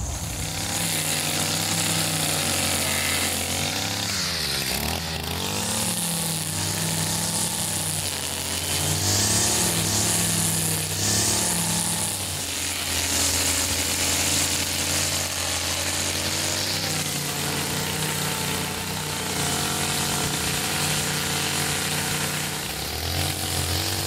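Stihl FS55RL string trimmer's small two-stroke engine running at working speed, its pitch rising and falling again and again as the throttle is worked while the spinning line cuts grass.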